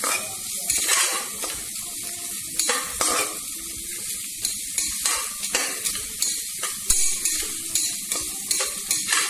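Onions, whole spices and green chilies sizzling in hot oil in an aluminium pressure-cooker pot. A metal spatula stirs and scrapes the pot now and then.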